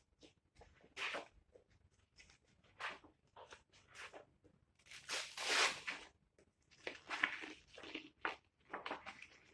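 Large, heavy wallpaper samples in a sample book being turned by hand, rustling and crackling in a series of short swishes. The longest and loudest swish comes about five to six seconds in.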